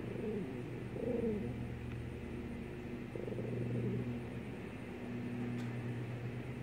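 A bird's low cooing calls, a few of them falling in pitch, over a steady low hum.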